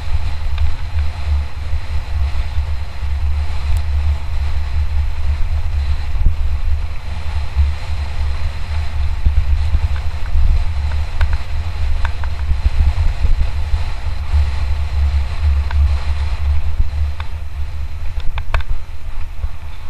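Wind rumbling on the microphone of a mountain bike descending at speed, over tyre and trail noise, with scattered clicks and rattles from the bike, a few close together near the end.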